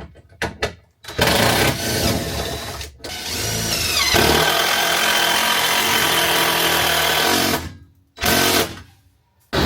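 A handheld power tool running in bursts, likely cutting out wooden bracing. It winds up in pitch about three and a half seconds in, runs steadily, cuts off sharply near the end, then gives one short final burst.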